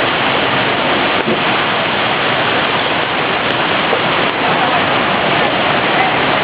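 Steady, even rush of water, like heavy rain, with no breaks or distinct events.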